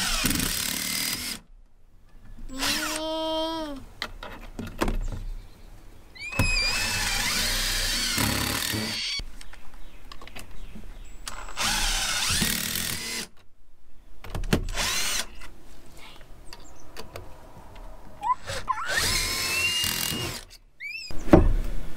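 Power drill driving deck screws into composite deck boards at a board seam, in about six separate runs, the motor pitch rising as it spins up, the longest run near a third of the way in lasting about three seconds.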